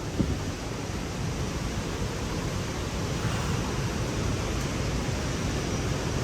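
Steady rushing roar of the Haew Narok waterfall's falling water, with a brief knock just after the start.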